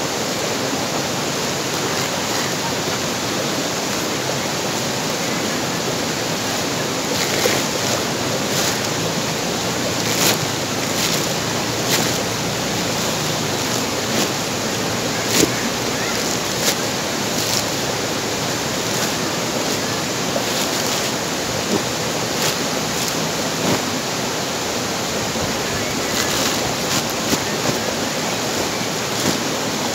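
A steady rushing noise throughout, with scattered short crackles as woven plastic sacks are unrolled and handled.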